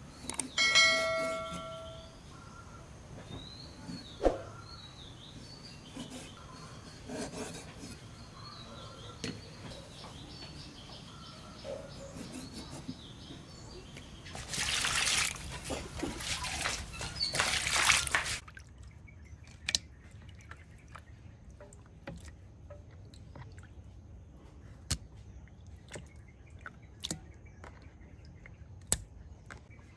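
Cleaver slicing raw pork on a wooden chopping block, with scattered knocks of the blade on the wood and small birds chirping in the background. A short chime from a subscribe-button effect plays near the start, and a rushing noise lasts about four seconds around the middle.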